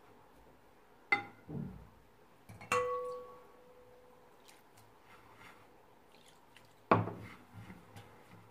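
Three sharp clinks of a small water glass against a ceramic plate. The middle one leaves a short ringing note. Between them comes the faint rustle of hands rubbing damp couscous grain.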